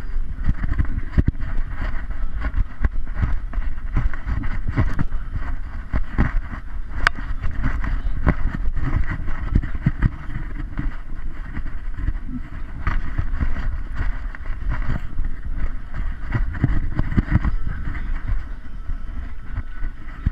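Muffled rumbling and rubbing from a GoPro camera mounted on a moving dog's harness, with many irregular knocks.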